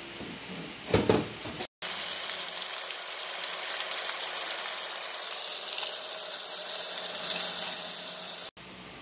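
A tap running into a sink: a steady rushing hiss that starts and stops abruptly. A brief knock comes about a second in, before the water starts.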